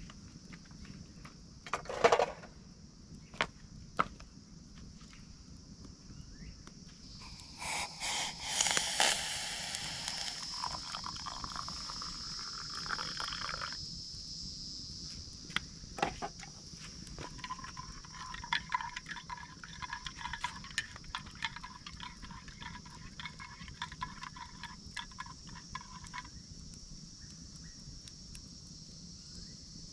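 Camp coffee being made: a few sharp clicks and knocks of utensils, then water poured in noisy spurts, and a longer steady, slightly pulsing pour or trickle.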